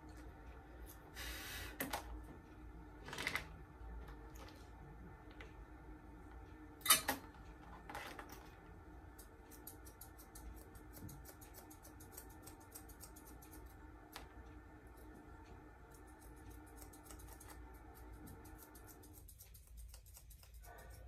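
Small grooming scissors snipping the fur on a Persian cat's face: scattered soft clicks, with a few louder snips and knocks in the first eight seconds, the loudest about seven seconds in, over a steady room hum.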